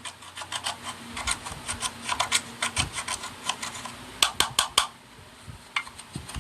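Crisp clicks and taps of slime being worked, coming in irregular runs of several a second, with a faint steady hum underneath.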